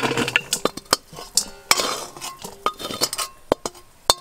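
Metal spatula clinking and scraping against a metal wok and a stainless steel bowl as cooked pasta is tipped from one into the other. Many small knocks, some with a short metallic ring, and two sharper knocks near the end.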